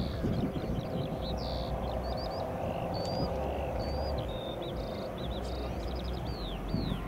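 Boeing 747-8i's four GEnx turbofan engines giving a steady jet rumble as the airliner climbs away. Small birds chirp close by throughout, with many quick high notes, most of them falling in pitch.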